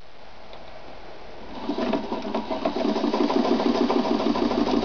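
Ideal 730 electric sewing machine starting about a second and a half in and then running steadily, the needle stitching through leather with a fast, even ticking.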